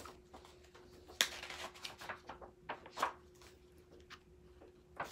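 Yearbook pages being turned by hand: a run of short papery swishes and taps, the strongest about a second in and again about three seconds in.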